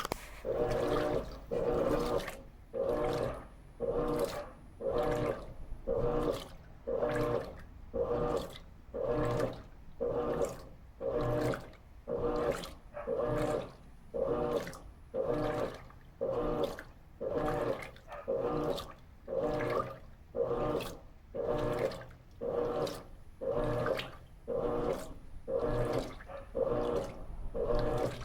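Electrolux LT13B top-load washing machine agitating a load of sheets and towels in water: the motor hums through each agitator stroke and drops out between strokes, about three strokes every two seconds, with water sloshing in the tub.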